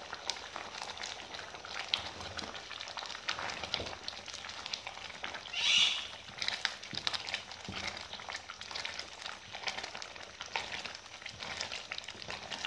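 Wooden spoon stirring thick, simmering masoor dal in a metal pot: scattered clicks and scrapes over wet bubbling, with a brief higher-pitched squeak about six seconds in.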